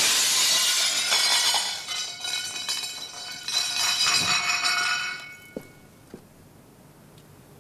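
Porcelain crockery smashing and clattering, a long run of breaking and clinking with ringing shards that dies away about five seconds in, followed by two small knocks.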